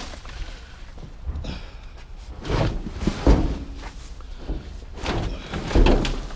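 Curbside junk being handled and loaded: a few heavy knocks and thuds as items are moved and set down, one with a short metallic ring, about halfway through and again near the end.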